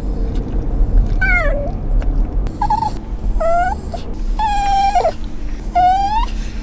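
Italian greyhound crying in a car: about five separate high-pitched whines, some rising in pitch and some falling, over the steady low rumble of the car.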